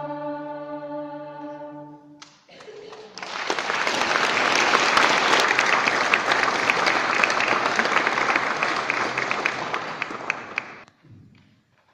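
A children's choir's final sustained chord, ending about two seconds in, followed by the audience applauding for about eight seconds. The applause cuts off suddenly near the end.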